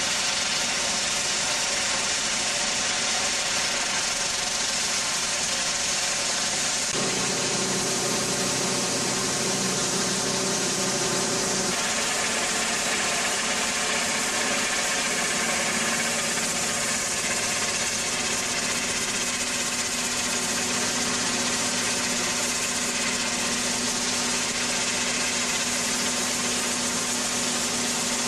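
Ultra-high-pressure water jet from a rotating nozzle blasting paint and rust off a steel ship's hull with water only, a loud steady hiss. A machine drone runs underneath, its tones shifting about seven seconds in and again about twelve seconds in.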